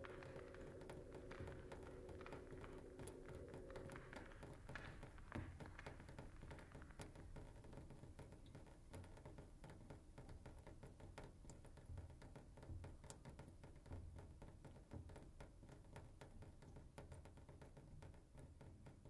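Near silence: a faint electronic soundtrack ambience of scattered soft clicks over a low rumble, with a held low chord that fades out about four seconds in.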